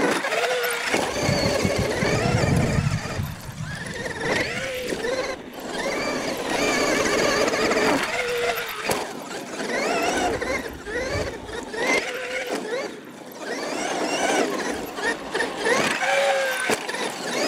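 Traxxas X-Maxx RC monster truck's electric motor whining, its pitch rising and falling over and over as the throttle is worked, with a low rumble of the tyres on dirt between about one and three seconds in.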